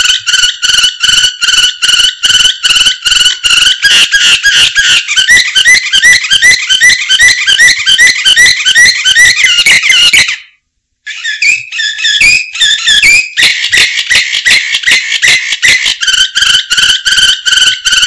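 Domestic canary singing a long, loud song of fast trills, each run of quickly repeated high notes giving way to another. The song breaks off for under a second a little past the middle, then picks up again.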